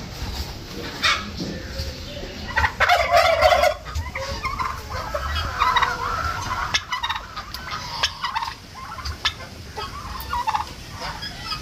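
Domestic fowl calling in repeated bursts, loudest for about a second a few seconds in.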